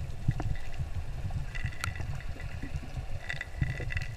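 Muffled underwater water noise picked up by a submerged GoPro in its housing: a steady, uneven low rumble, with a few sharp clicks and two short clusters of high ticking about one and a half and three and a half seconds in.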